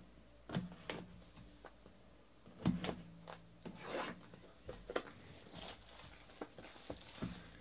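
Hands handling and opening a 2018 Leaf Trinity Baseball cardboard card box: a scattered run of light taps and knocks on the cardboard, with brief rustling of the box and its wrapping about four seconds in and again near six seconds.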